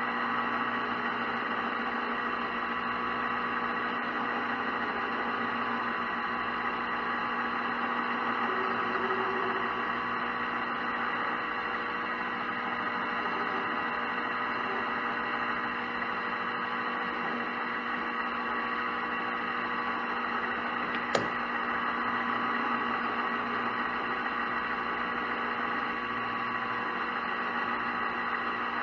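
Metal lathe running steadily with a slow parting cut into half-inch copper bar, a high steady whine over a hiss. One sharp click about 21 seconds in.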